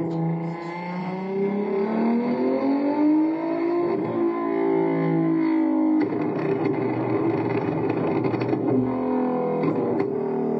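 Car engine revving, its pitch climbing over the first few seconds, then running rougher and harder from about six seconds in.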